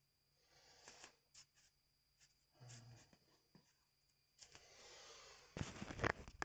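Faint rustles and small clicks of bare feet and skin moving in a small room, then from about four and a half seconds in a rising rubbing noise that turns into loud handling noise as the phone is grabbed and moved, its microphone scraping against hands and skin.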